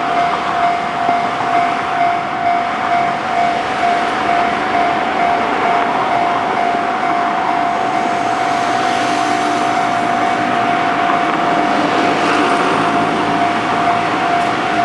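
Japanese level crossing warning bell ringing steadily in an even repeating rhythm. Over the second half a two-car KiHa 48 + KiHa 40 diesel railcar set approaches, and its engine and rail noise grow louder beneath the bell.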